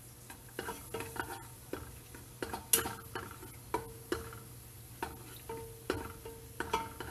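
A spoon stirring chopped garlic in hot oil in an aluminium pot, scraping and knocking against the pot about every half second, each stroke leaving a short ringing tone.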